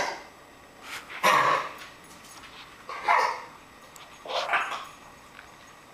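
A puppy coughing over and over, one short cough about every second and a half, each with a quieter lead-in just before it.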